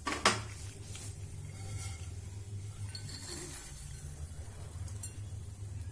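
A metal spatula clinks sharply once against the pan or bowl, then scrapes more quietly as roasted semolina and chopped dry fruits are tipped from a nonstick pan into a ceramic bowl. A steady low hum runs underneath.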